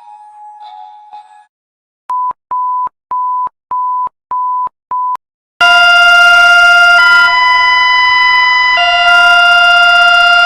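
Emergency alert system alarm tones: six short, evenly spaced beeps on one pitch, then a loud sustained multi-tone alarm chord that shifts pitch twice. Faint chime notes fade out before the beeps.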